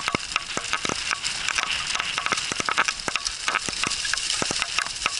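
Continuous crackling rustle of rig wheels and two running dogs' paws over a trail of dry fallen leaves, broken by many sharp snaps of leaves and twigs.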